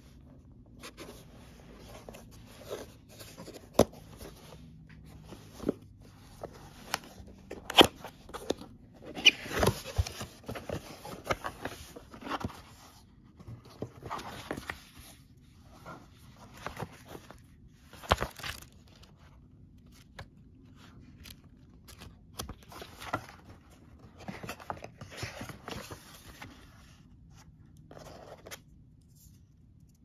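Cardboard box and paper booklet being handled: irregular rustling and scraping, with a few sharp clicks and taps of cardboard.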